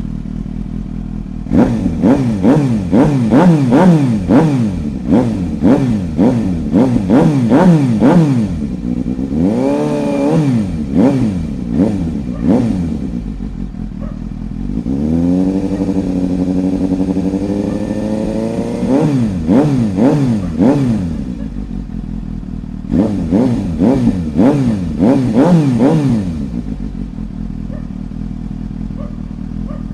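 Suzuki GSX-S750's 749 cc inline-four, fitted with an SC Project slip-on exhaust that still keeps the pre-silencer, revved while standing: bursts of quick throttle blips, one rev held high for a few seconds about halfway through, and short spells of steady idle between them.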